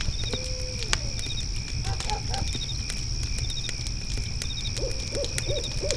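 Fire pit crackling under a steady high trill of crickets, with short cricket chirps repeating about once a second. An owl hoots once near the start and gives a quick run of hoots near the end.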